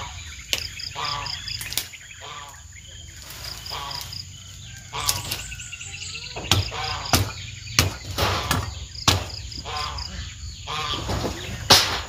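A digging tool striking into the ground about nine times, irregularly, while cassava roots are dug up; the loudest strike comes near the end. Behind it are a steady high insect drone and a cricket chirping in short quick groups.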